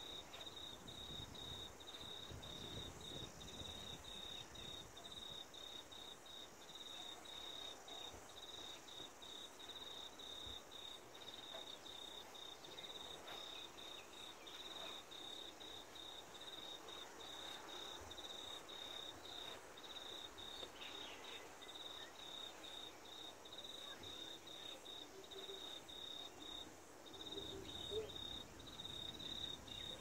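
An insect trilling: one high, steady tone chopped into rapid pulses, with a short break near the end.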